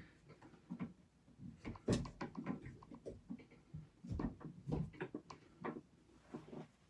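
Hands handling PEX tubing and brass SharkBite push-to-connect fittings: irregular knocks, taps and rubbing of plastic pipe against metal fittings, loudest about two seconds in and again a little after four seconds.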